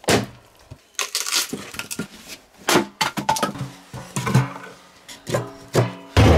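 An axe blow at the start, then a series of sharp wooden knocks and clunks as split firewood pieces are packed into a steel drum, knocking against each other and the metal.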